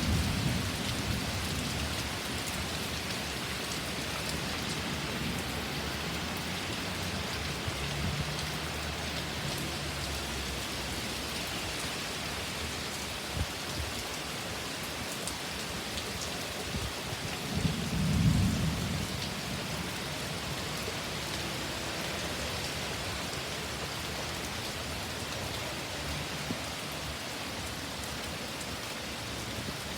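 Heavy thunderstorm rain pouring steadily. A low rumble of thunder sounds at the start and again a little past the middle, the louder of the two.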